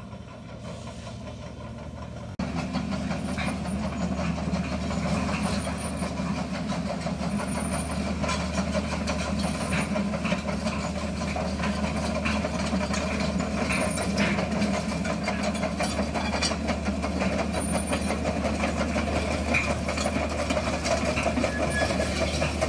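JCB JS130 tracked excavator's diesel engine running under load while the machine travels on its steel tracks, with a steady drone and frequent clanks and short high squeaks from the tracks. The engine gets markedly louder about two seconds in.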